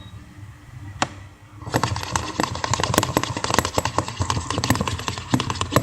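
Stirring tool clicking and tapping fast against a container while mixing a glue, baby powder and body wash slime base. A single click comes about a second in, and the rapid stirring starts about half a second later.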